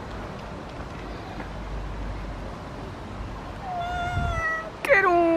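Two drawn-out, high-pitched whining cries near the end, the second louder and lower, falling in pitch.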